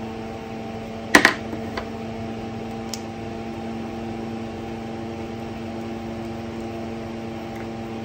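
Steady mechanical hum made of several fixed tones, with a single sharp click about a second in.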